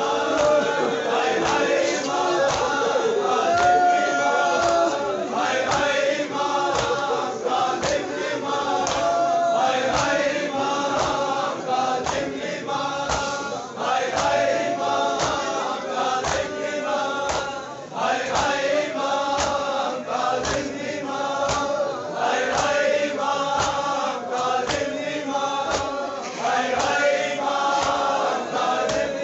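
A large crowd of male mourners chanting a lament in unison, many voices together, with a steady beat of strikes under the chant, in the manner of matam beating.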